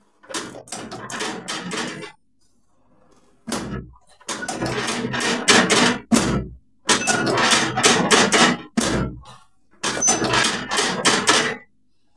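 Bursts of rapid percussive thumping during a chiropractic treatment, about five strikes a second, each burst lasting one to two seconds. A few shorter, heavier thuds fall between the bursts.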